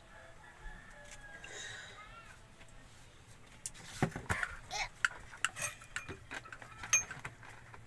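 Faint short animal calls, clucking-like, in the background. Then, from about four seconds in, scattered knocks, clicks and a sharp clink as things are handled.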